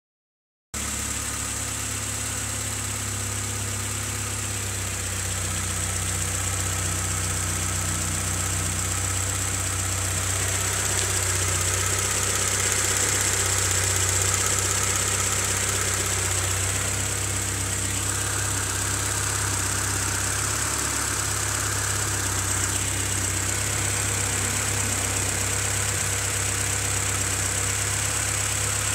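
Honda CRX engine idling steadily, with a knock that the owner suspects may be rod knock.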